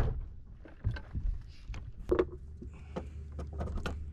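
Steady low wind rumble on the microphone, with a few scattered knocks and clicks from people moving about on a bass boat's deck.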